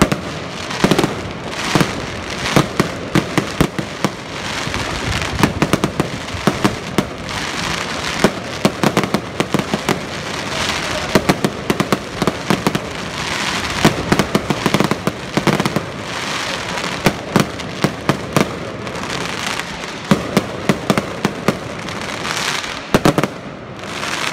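Aerial fireworks display: a dense, unbroken barrage of shell bursts, sharp bangs coming in quick clusters over a constant noisy bed of smaller pops.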